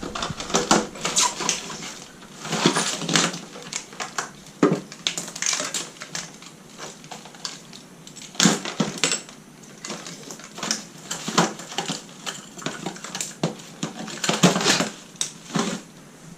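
Irregular clicks and clatter of small hard tools and parts being handled and knocked together on a workbench, several taps a second in uneven clusters.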